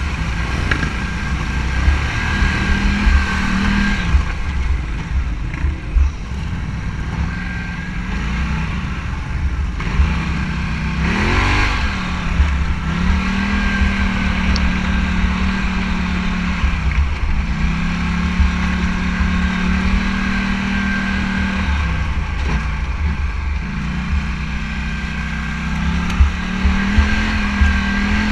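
Motorcycle engine running at a steady pitch under heavy wind buffeting on the microphone. The engine note drops briefly and climbs back about three times.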